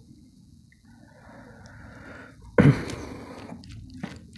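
Fingers mixing boiled rice with runny masoor dal on a paper plate, giving short wet, sticky clicks in the last second or so. A sudden loud burst of noise comes about two and a half seconds in.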